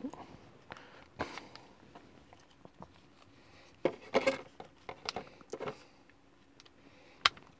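Handling noise of a plastic-and-metal smartphone clamp and mini tripod being fitted together by hand: scattered small clicks and knocks, a cluster of them a little after the middle and one sharp click near the end, as a part is pushed into a stiff mount.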